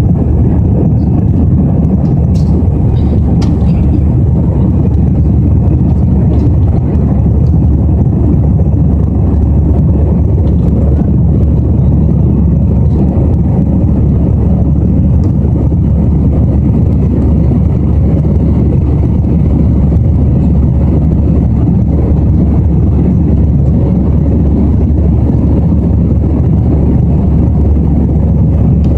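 Steady, deep roar of an Airbus A321's jet engines and rushing air, heard inside the passenger cabin shortly after takeoff.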